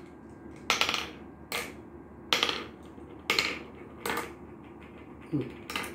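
Glass marbles clicking as they are dropped one at a time into the pits of a wooden Gurpale (mancala) board during a sowing move: about six sharp clicks, a little under a second apart.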